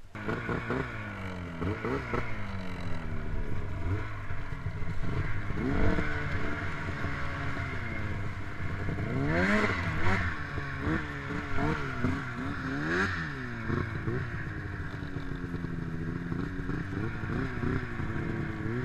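Ski-Doo snowmobile's two-stroke engine revving up and down again and again in short blips, with the biggest surges about halfway through and again about two-thirds through.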